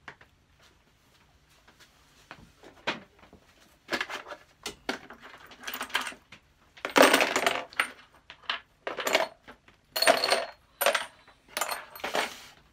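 Small metal parts clinking and clattering as they are gathered up and dropped into a clear plastic tub. The sound comes in a run of sharp clinks and rattling bursts starting about three seconds in.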